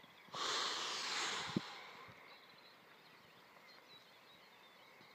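A long breathy exhale close to the microphone, starting suddenly and fading over about a second and a half, with a small click near its end; afterwards only faint chirping in the background.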